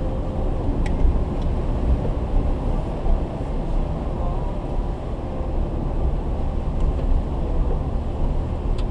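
Vehicle driving through shallow floodwater, heard from inside the cab: a steady low rumble of engine and tyres running through water.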